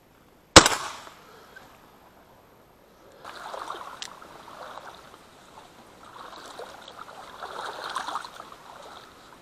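A single shotgun shot about half a second in, sharp and loud with a short echoing tail. From about three seconds in, water splashing and sloshing among reeds comes and goes.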